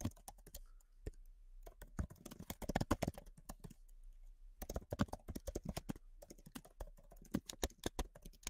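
Typing on a computer keyboard: quick, irregular key clicks in short flurries with brief pauses between them.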